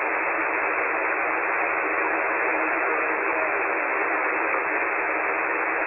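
Steady hiss of HF band noise from a web SDR receiver tuned to lower sideband on the 40-metre amateur band, with no station transmitting. The hiss is thin and filtered, held to the narrow voice passband of the sideband receiver.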